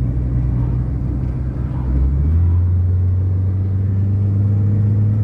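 A motor vehicle's engine running with a steady low drone; the pitch steps down about two seconds in.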